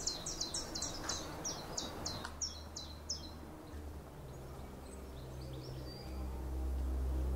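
A bird calling a rapid series of high, falling chirps, about three or four a second, which stops about three seconds in. A low steady hum swells near the end.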